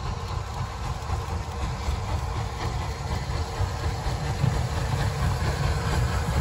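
Rebuilt Bulleid Battle of Britain class three-cylinder steam locomotive 34053 Sir Keith Park working a passenger train toward the listener: a heavy low rumble with a hiss of steam, growing steadily louder as it approaches.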